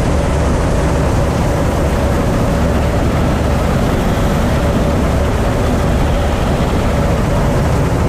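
Massey Ferguson 86 combine harvester running steadily while cutting wheat: a loud, even drone of the engine and threshing machinery, heard from the open driver's platform.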